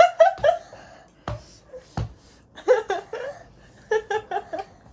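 A woman laughing in three bouts of short, quickly repeated bursts, with two sharp knocks between the first and second bouts.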